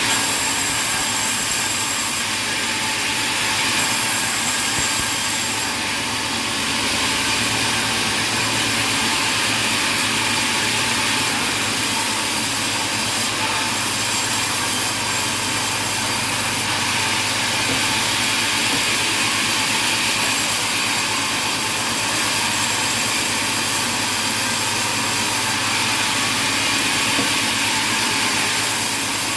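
Sawmill machinery running steadily, a continuous loud machine noise with no breaks.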